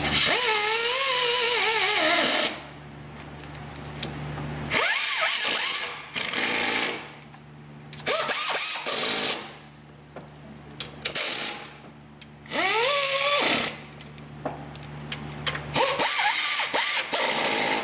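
Cordless power driver running in the new A/C compressor's mounting bolts in about six short bursts, its motor pitch rising and falling as the bolts take up load.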